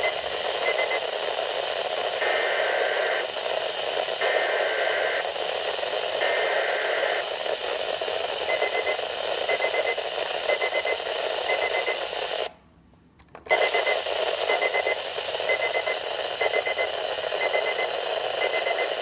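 Weather radio receiver hissing with static while it sends three one-second warbling data bursts about a second apart. These are the SAME header that opens an emergency alert. Short high beeps follow about once a second, broken by a brief cut-out of the audio about halfway through.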